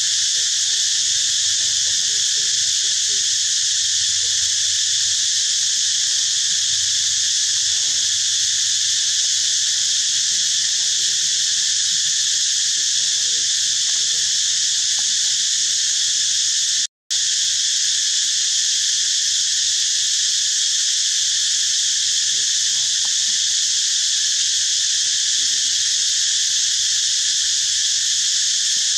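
Loud, steady forest insect chorus: a continuous high-pitched drone that does not change. It cuts out completely for a moment a little past halfway, then resumes unchanged.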